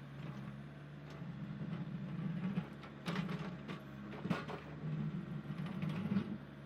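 Excavator engine running steadily, getting louder about half a second in and dropping back near the end, with a series of sharp knocks and clanks, the loudest about three and four seconds in.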